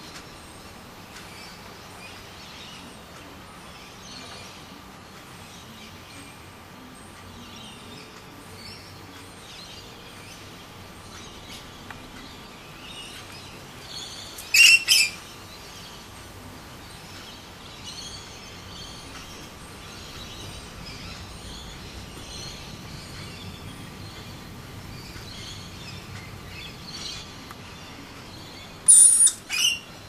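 Rainbow lorikeet calling: two short loud high calls about halfway through and two more near the end, with softer chirping in between.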